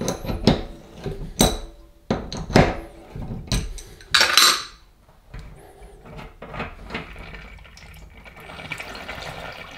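Adjustable spanner clinking and knocking on the cartridge nut of a kitchen mixer tap over a stainless steel sink, with a louder metallic clatter about four seconds in. Near the end comes a soft, steady trickle of leftover water as the ceramic tap cartridge is worked loose.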